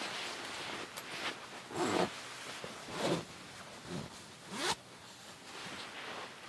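A zipper pulled in several short strokes, each a brief rasp that sweeps in pitch.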